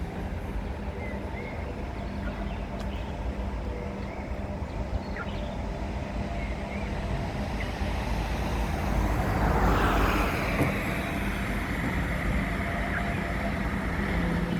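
Distant road traffic: a steady low rumble with a steady hum, swelling louder about two-thirds of the way through.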